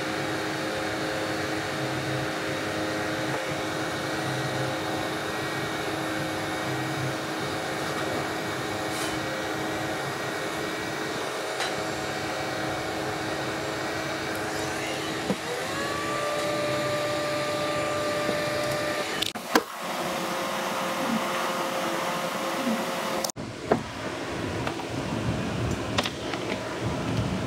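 Electric heat gun blowing steadily, its fan running with a steady hum. About 15 s in, a tone slides up and then holds. There is a sharp click near 20 s.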